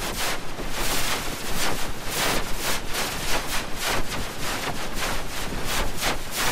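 A cartoon soundtrack crushed by stacked pitch and distortion effects into harsh, static-like noise that surges and drops several times a second, with no clear voice or tune left in it.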